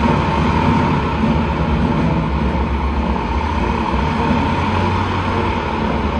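A steady, loud mechanical rumble with a constant hum.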